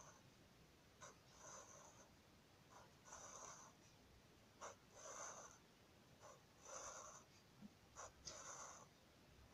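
Black felt-tip marker drawing on paper: a faint series of short strokes, each about half a second long, some led by a light tap as the tip touches down.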